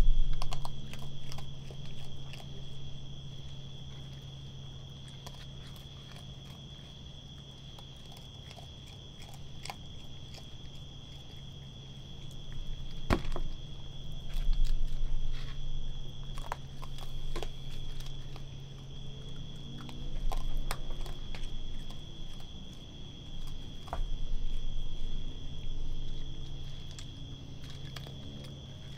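Raccoon chewing and crunching food, with scattered small clicks and a few soft thumps as it eats and shifts about. Underneath run a steady low hum and a steady high tone.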